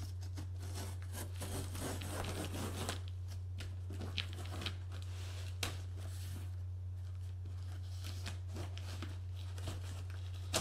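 A knife blade slicing through packing tape and cardboard along a box seam: a scratchy tearing for about the first three seconds, then scattered scrapes and clicks as the cut goes on. A steady low hum runs underneath.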